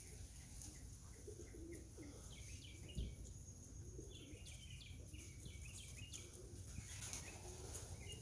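Homing pigeons cooing softly around the loft, with runs of quick high bird chirps. One brief low thump about three seconds in.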